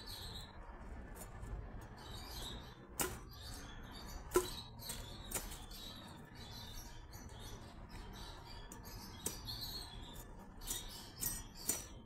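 Dry date-palm fronds and fibre rustling and crackling as they are cut and pulled with a knife, with a few sharp snaps, the loudest about four seconds in.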